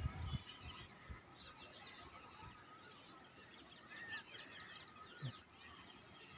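Faint birdsong: many short, quick chirps from small birds, with one clearer call about four seconds in. A soft low thump comes about five seconds in.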